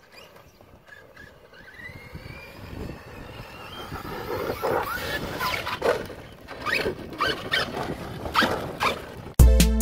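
Arrma Outcast 4S RC truck's brushless electric motor whining, rising in pitch as it speeds up, then revving up and down in short bursts and growing louder as the truck comes closer over gravel. Loud music cuts in right at the end.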